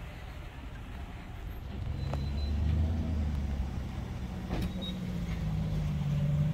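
Pickup truck engine running at low speed, its low rumble growing louder about two seconds in and holding steady.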